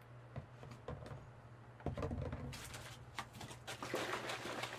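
Faint clicks and rustling of paper milk cartons being handled and set down on a table, over a steady low hum.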